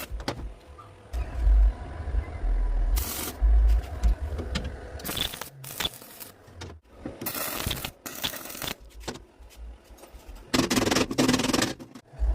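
Metalworking noise: metal scraping and clattering, broken by several separate bursts of harsh noise, each about half a second to a second and a half long.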